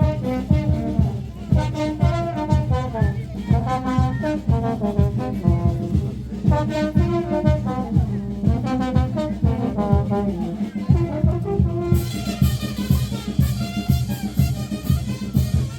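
Upbeat music with brass horns playing the melody over a steady, driving beat; about twelve seconds in, bright high percussion such as cymbals joins in.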